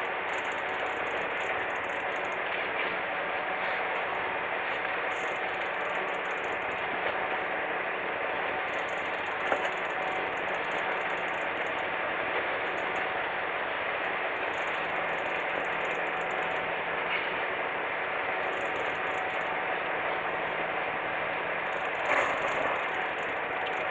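Steady drone of a fishing boat's engine running, mixed with wind and sea noise, with faint steady hum tones. There is a light knock about ten seconds in and a louder bump near the end.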